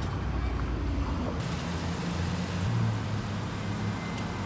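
Steady low rumble of a moving car's road and engine noise.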